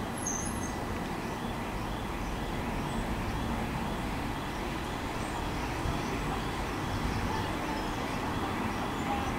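Southern Class 377 Electrostar electric multiple unit pulling away from the platform: a steady low rumble of the train running.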